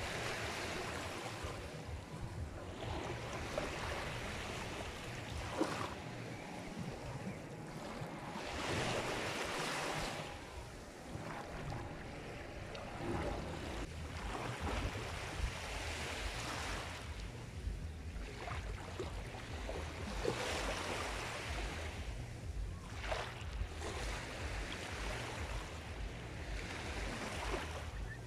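Sea surf: waves washing onto a shore. The hiss swells and fades every few seconds, over a steady low rumble.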